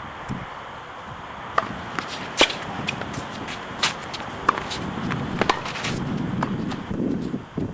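Tennis ball pops in play: a string of short, sharp hits of the ball bouncing on the hard court and coming off the racket strings, two of them much louder than the rest. Wind rumbles on the microphone in the second half.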